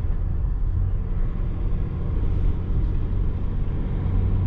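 Chevrolet Silverado 1500's 3.0-litre LM2 Duramax inline-six turbodiesel, heard from inside the cab, pulling at low revs under tow with a steady low drone. The engine has a knock that sounds like injector knock to the owner, and a whistle that he takes for an exhaust leak.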